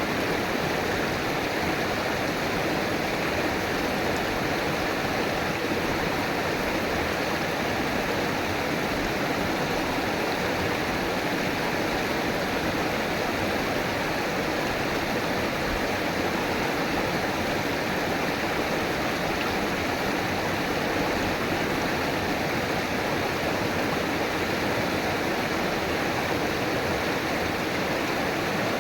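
River water flowing and rushing steadily over rocks.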